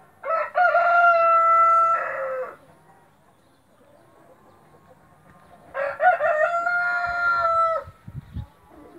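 White splash Brahma rooster crowing twice, each crow about two seconds long, holding a steady note and dropping in pitch at the end.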